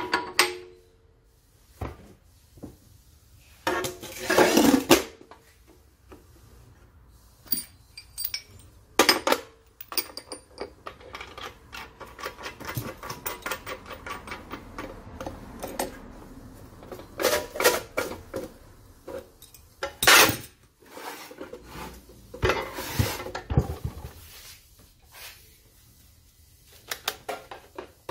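Metal parts of a cut-off saw clinking and knocking as the arbor flange, abrasive wheel and arbor nut are fitted and tightened with an adjustable wrench. Scattered sharp clinks, with a run of quick clicks in the middle.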